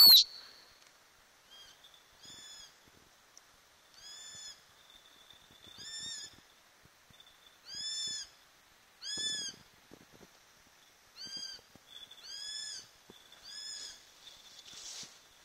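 Eurasian sparrowhawk calling: a series of short, high calls, each rising and falling in pitch, repeated every one to two seconds, loudest at the very start.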